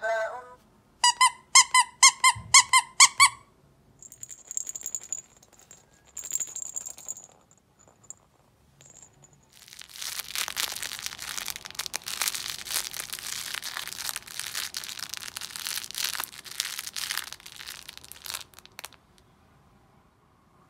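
Squeaker in a plush baby toy squeezed about nine times in quick succession. Later a long dense crackling rustle with many small clicks as the soft fabric toy is squeezed and worked in the hand.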